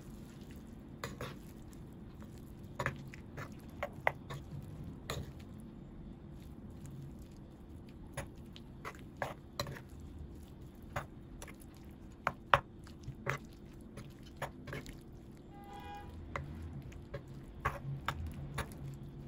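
Metal spoon stirring chunks of lamb and vegetables in their juices in a baking dish, with scattered clicks and scrapes of the spoon against the dish.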